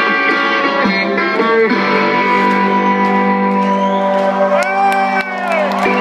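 Live rock band playing an instrumental break between sung verses, electric guitar leading with long held notes, heard amplified from the audience.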